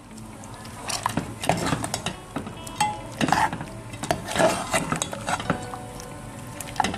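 Metal spoon stirring chicken and yogurt in a metal cooking pot, scraping and clinking against the pot at irregular intervals.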